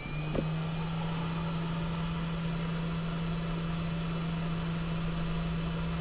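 A hot-air heat gun blowing steadily: an even rush of air over a steady electrical hum, switching on suddenly at the start.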